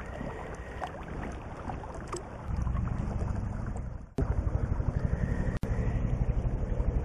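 Rushing stream water with wind buffeting the camera microphone. The low rumble grows heavier about two and a half seconds in and cuts out briefly twice.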